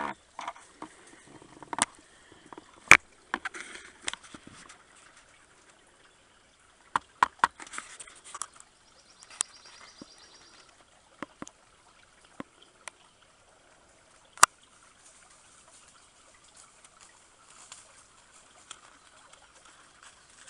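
Shallow creek trickling faintly, with scattered sharp snaps and crackles of footsteps on dry leaves and twigs, the loudest about three seconds in and again near the middle. A brief high trill sounds about halfway through.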